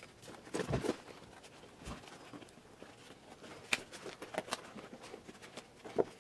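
Handling noise as a fabric grass bag is worked onto its plastic frame: scattered rustles of the bag fabric and sharp clicks and knocks of the plastic, the loudest near the end.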